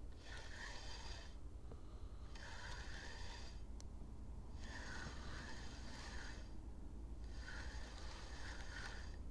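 Spinning reel being cranked to retrieve line, its gears whirring in four bursts of a second or two with short pauses between, a stop-and-go retrieve.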